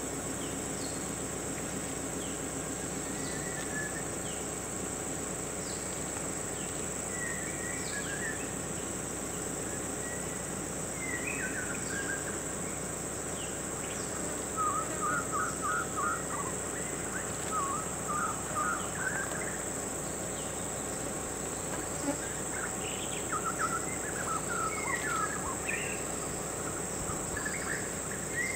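A steady, high-pitched insect drone runs throughout. Over it come short bursts of quick, chirping bird calls, a few at a time early on and then in denser runs around the middle and again near the end.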